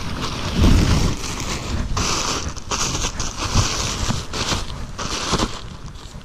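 Gusty wind buffeting the action camera's microphone, with irregular rustling and crackling that comes and goes.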